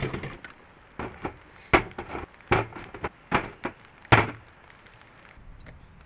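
A dozen or so irregular knocks and thuds over about four and a half seconds, the loudest near the end, then quieter.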